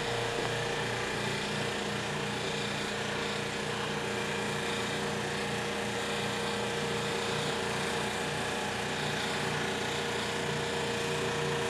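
Steady drone of running machinery, with a constant humming note over a low, wavering throb and a faint even hiss.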